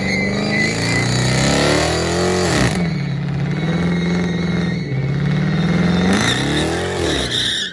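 Car engine running at a steady note and revved twice. Each rev climbs for about a second and drops back sharply: the first peaks near the middle, the second near the end. The sound cuts off suddenly at the very end.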